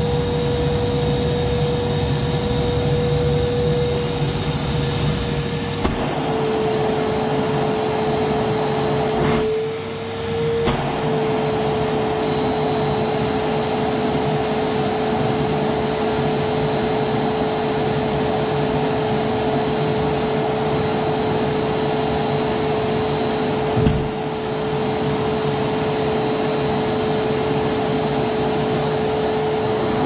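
Vacuum cleaner running steadily with a motor whine; the whine drops a little in pitch about six seconds in and wavers with a brief dip in level around ten seconds in. A single short knock comes late on.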